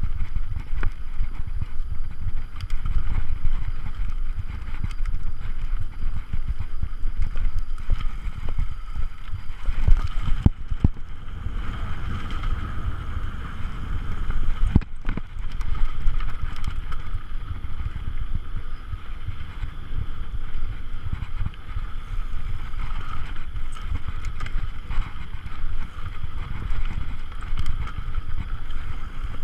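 Mountain bike ridden over a rough dirt trail: wind on the microphone and the rumble and rattle of the bike over bumps, with sharper knocks about ten and fifteen seconds in.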